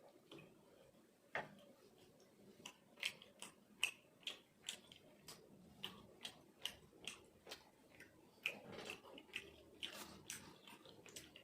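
Close-miked chewing: wet mouth clicks and smacks at a steady chewing rhythm of about two to three a second, faint, with a few louder clicks.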